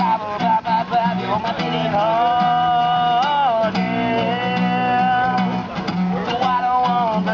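Acoustic guitar music with a voice singing long held notes over it; one held note rises and falls about three seconds in.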